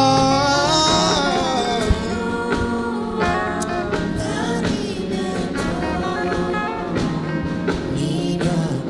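Live gospel worship music: a singer holds a wavering note that dies away in the first second or two, and the band's accompaniment, with guitar, carries on beneath it.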